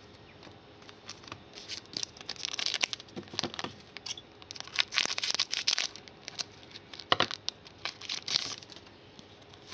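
Foil wrapper of a Donruss Soccer 2015 trading-card pack being torn open by hand, crinkling and crackling in irregular bursts with a few sharp clicks.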